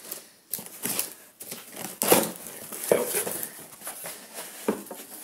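Packing tape on a cardboard shipping box being slit with a cutter, then the cardboard flaps pulled open, giving a series of sharp scrapes, rips and crinkles about a second apart.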